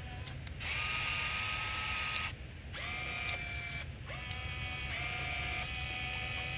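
Radio-controlled excavator's electric motors whining in three runs, each rising in pitch as it starts, then holding steady before cutting off.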